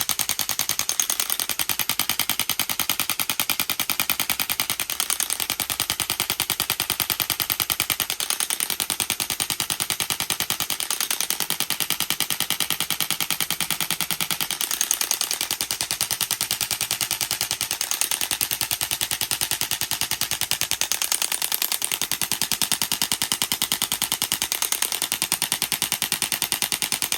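Electric 1200 N chiropractic adjusting gun running continuously with the button held down, firing a fast, even stream of rapid-fire impulses. It cuts off abruptly at the very end.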